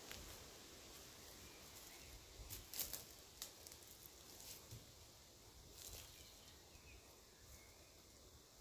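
Near silence: faint rustling of leafy branches with a few short soft snaps and clicks as young shoots are picked by hand, the clearest cluster about two and a half to three seconds in.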